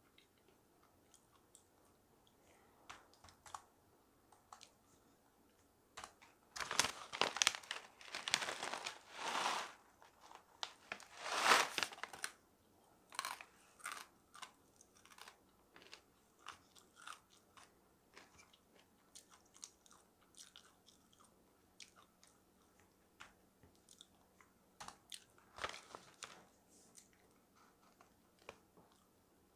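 Close-miked chewing of dried jujube slices: soft, scattered mouth clicks, with a stretch of loud crunching about a quarter of the way in and a shorter one near the end.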